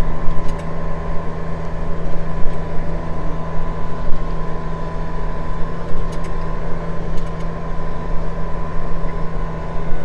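Farm tractor's engine running steadily under way, heard from inside the cab, with a constant hum and a thin steady whine above it. A few faint clicks come through, around half a second in and again about six and seven seconds in.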